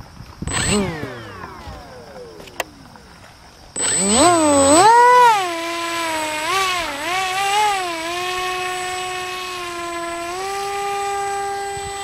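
Electric motor and propeller of a small RC foam delta-wing plane whining in flight. About half a second in, the whine falls steadily in pitch and fades. About four seconds in, a louder whine cuts in, rises and wavers up and down with the throttle, then holds steady and steps up in pitch near the end.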